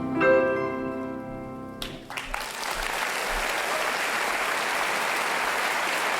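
String quartet and piano hold a final chord that ends about two seconds in, then a theatre audience breaks into steady applause.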